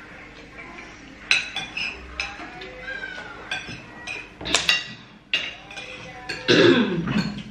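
Metal spoons clinking and scraping against ceramic plates and bowls while people eat rice, in scattered sharp clicks. Near the end comes a louder crackle as a plastic water bottle is handled.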